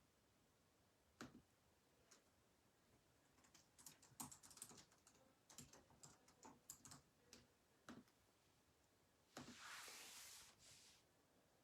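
Faint typing on a computer keyboard: a scatter of key clicks, busiest in the middle, followed near the end by a brief rush of noise.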